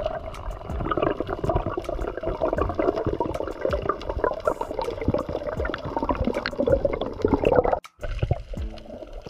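Underwater water noise from a diver swimming over a reef: gurgling, bubbling water churning around the camera, with many sharp clicks. It cuts off abruptly near the end, and faint music follows.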